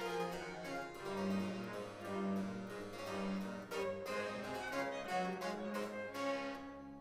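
Baroque string ensemble with harpsichord continuo playing the closing bars of an instrumental passage, with sustained bass notes under the plucked harpsichord. It ends on a final chord near the end that dies away.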